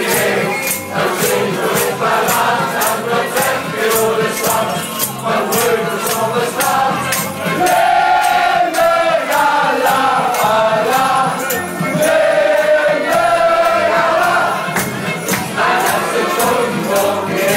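Loud party music with a steady beat and sharp ticks about twice a second, with singing voices over it from about halfway through.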